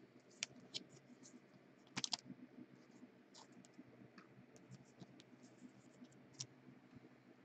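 Faint scratching and scattered clicks of plastic as a trading card is slid into a clear plastic sleeve and holder, with a sharper cluster of clicks about two seconds in.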